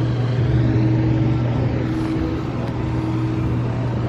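Steady low drone of an engine running at a constant speed, holding one pitch.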